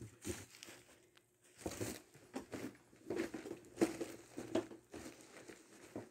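Handling noise: a phone's microphone rubbing and bumping against cloth, with irregular rustles and soft knocks.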